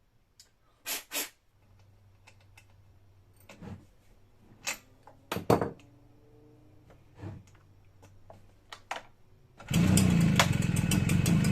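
A few scattered knocks and swishes of a hand-pulled recoil starter on a Stihl BR340 backpack blower. About ten seconds in, its two-stroke engine catches and runs loud and steady. It is hard starting, with water still in the fuel lines and carburetor.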